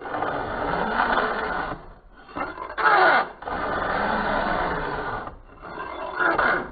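Round chainsaw file rasping across the cutters of a saw chain in steady repeated strokes, sharpening them, with two short pauses, about two seconds in and about five seconds in.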